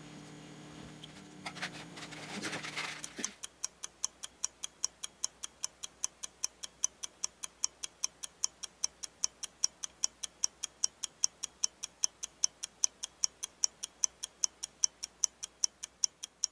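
Steady clock-like ticking, about four ticks a second, starting about three seconds in after a few faint knocks.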